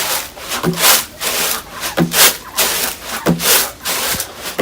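Paddy grain being winnowed in a bamboo kula tray: rhythmic swishing and rattling strokes as the wet rice is tossed and shaken to throw out the dirt and chaff.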